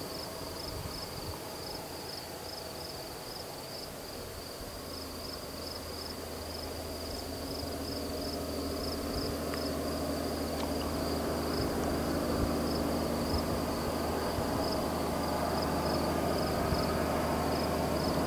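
Insects chirping in a steady, evenly spaced rhythm, high-pitched, about two chirps a second. From about five seconds in, a vehicle engine's low hum grows gradually louder beneath them.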